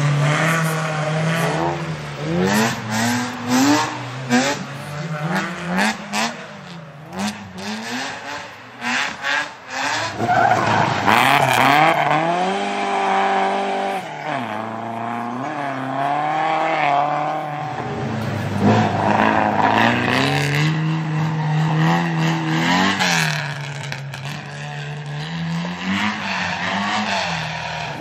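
Rally car engine revving hard and lifting off again and again as it is driven through corners, its pitch repeatedly climbing and dropping, with a long run at high revs about halfway through. Sharp cracks come thick and fast in the first third.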